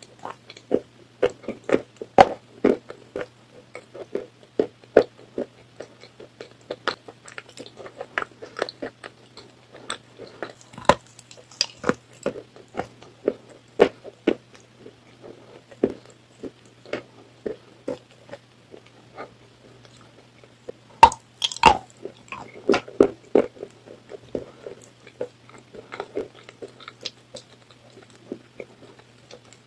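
Biting and chewing of a dry, crumbly chalk-like block: irregular sharp crunches, about one or two a second, with a louder cluster about two-thirds of the way in. A faint steady hum lies underneath.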